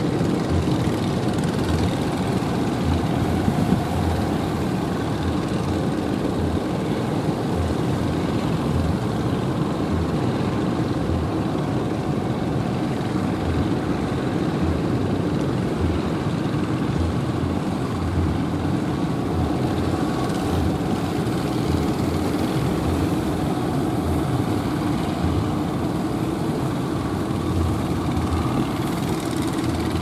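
Motorised wooden fishing boats' engines running steadily as the boats pass, a continuous mechanical drone with a low, uneven pulsing.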